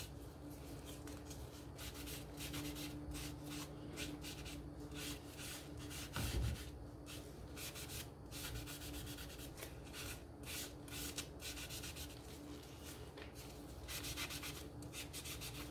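Foam brush rubbing wood stain onto thin laser-cut wood in quick, repeated faint strokes, with a low thump about six seconds in.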